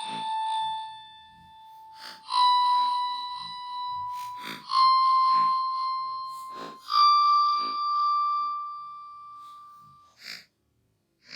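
An iPhone sound effect slowed down: a run of long electronic notes, each a little higher than the one before, a new one every two seconds or so with a sharp click at its start. The run stops with a short burst about ten seconds in, and then it is silent.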